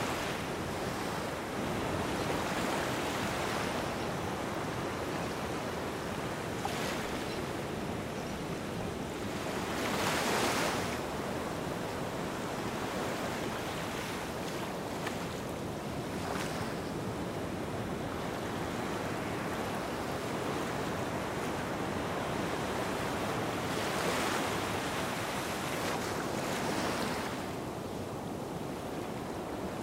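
Small waves washing up onto a sandy beach over a steady rush of surf. The wash swells and falls back every few seconds, loudest about ten seconds in.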